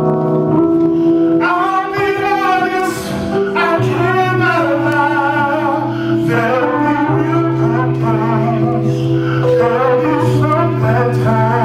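Music: a slow song, a singer's wavering melody over long held chords.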